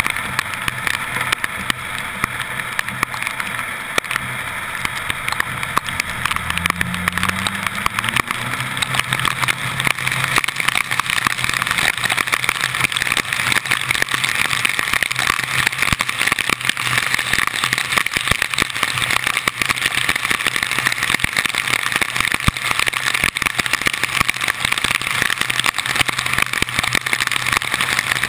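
A car driving through heavy tropical-storm rain, picked up by a camera on the hood: a steady rush of wind, rain and tyre spray on the flooded road, dense with the patter of drops. About six seconds in, the engine note rises as the car speeds up, and the rushing grows louder after that.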